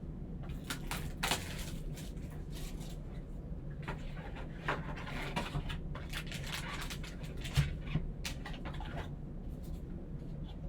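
Hands unsealing and opening a shrink-wrapped box of baseball cards: irregular rustling and crackling of wrap and cardboard, with a low knock about seven and a half seconds in, over a steady low hum.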